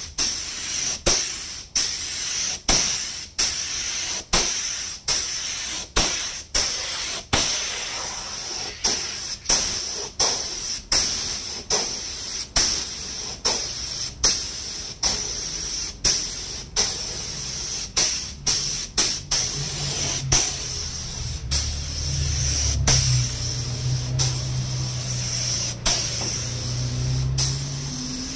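Air spray gun hissing as it sprays a first layer of nano coating onto a car headlamp lens, crossed by sharp regular ticks about every two-thirds of a second. A low hum joins about two-thirds of the way in.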